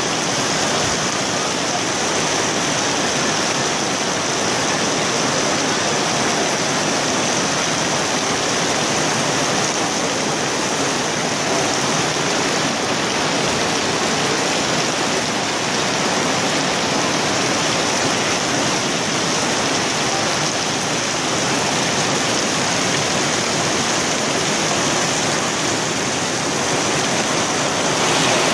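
Heavy rain pouring down in a downpour, a dense, steady hiss of rain.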